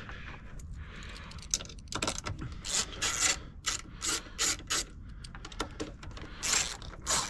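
Hand ratchet wrench clicking in short repeated runs as bolts are loosened, busier from about two seconds in.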